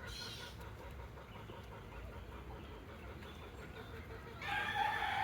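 A rooster crowing near the end, one long pitched call, over a low steady rumble.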